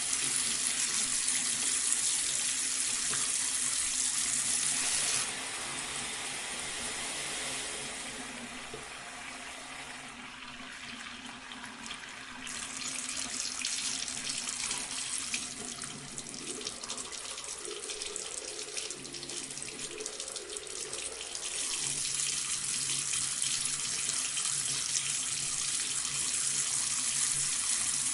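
Bathroom sink tap running, water splashing into the basin. The splashing gets quieter about five seconds in and builds up louder again in the second half.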